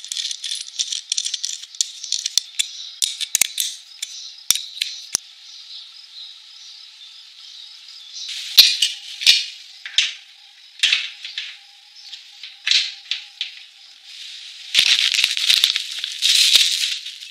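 A welder's spring-loaded earth clamp being handled: irregular metal clicks and rattles as its copper-lined jaws are worked. Near the end comes a longer stretch of plastic packaging crinkling.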